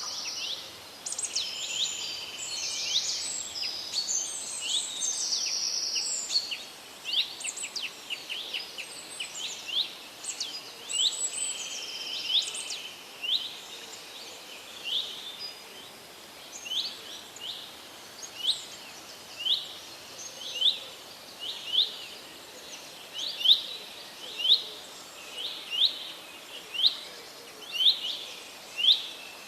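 Wild songbirds singing: several birds call over one another in the first half, then one bird repeats a short, rising chirp about once a second, over faint outdoor background noise.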